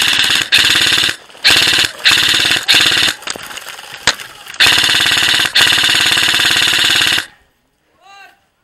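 Airsoft electric rifle (G&P Magpul PTS MOE M4 replica) firing full-auto in several long, loud bursts with short pauses between them, the rapid rattle of the gearbox cycling. The firing stops about seven seconds in.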